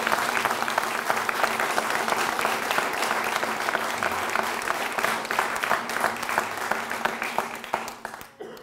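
Crowd applauding, a dense patter of many hands clapping that thins out and dies away near the end.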